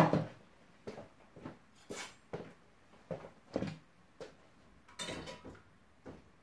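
Cookware clanking and clinking: one sharp knock, then a string of light knocks and taps of a metal spoon against the frying pan and the pasta pot while starchy pasta water is spooned into the pan, with a louder clank about five seconds in.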